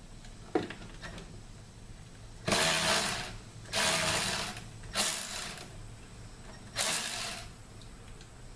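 Hand socket ratchet clicking in four short strokes on a long extension, backing out a 10 mm screw, after a single click near the start.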